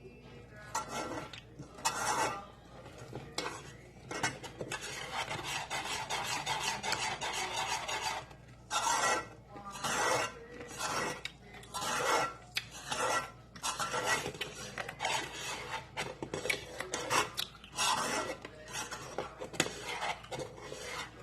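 Spoon or spatula scraping and stirring against the bottom of a cooking pan in repeated rasping strokes, many about a second apart. The thick condensed-milk yema mixture is being stirred as it cooks down, near the end of cooking.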